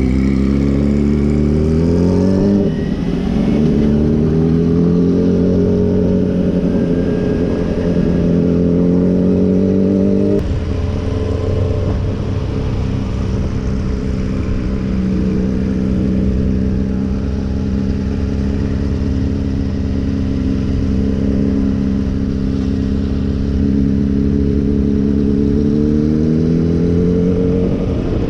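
Kawasaki sport bike's engine pulling up through the gears, heard from the rider's seat over wind rush. The revs climb, step down at a shift about two and a half seconds in, and climb again. They drop sharply about ten seconds in, hold steady at cruise, and rise again near the end.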